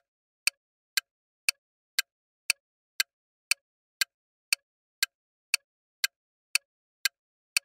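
Countdown timer sound effect: sharp, evenly spaced clock ticks, two a second, with silence between them.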